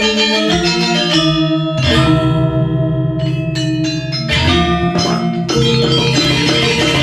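Balinese gong kebyar gamelan playing: ringing bronze metallophones and gongs with drums, the music changing suddenly about two seconds in and again near four and five and a half seconds.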